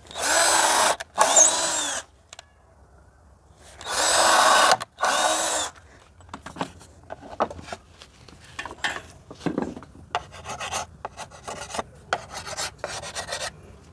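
Cordless drill boring holes through MDF board in four short runs, two at the start and two about four seconds in, the motor winding up and down each time. Then a wood chisel scrapes and pares the MDF in quick, irregular strokes.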